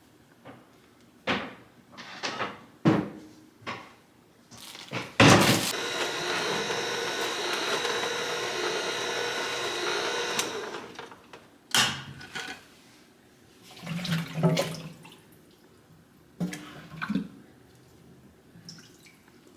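Kitchen tap turned on, water running steadily into the sink for about five seconds, then shut off. Scattered knocks and clatter of produce and kitchenware being handled before and after.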